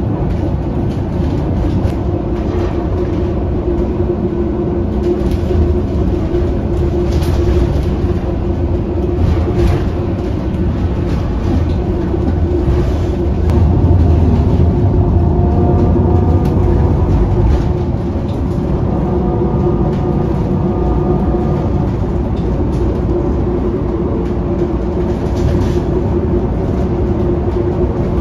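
Cabin noise of an electric city bus on the move: low road and tyre rumble with a steady hum and a few light knocks and rattles from the fittings.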